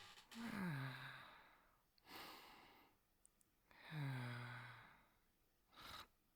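A person's soft, performed sleep snoring: two low voiced snores about three and a half seconds apart, each dropping in pitch, with a breathy breath after each.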